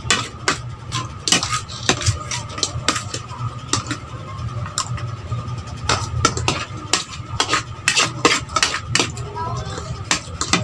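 Metal spoon and fork clinking and scraping on a ceramic plate of rice, in many irregular sharp clinks, over a steady low hum.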